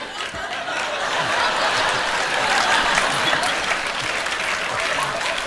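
Studio audience applauding and laughing, swelling to a peak midway.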